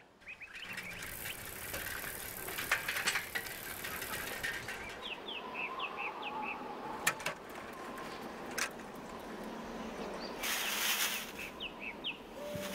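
Outdoor ambience with birds chirping in short rising chirps, a run of them midway and another near the end. A few sharp clicks come about seven to nine seconds in, and a burst of rustling comes near the end, from a man handling a parked bicycle and plastic carrier bags.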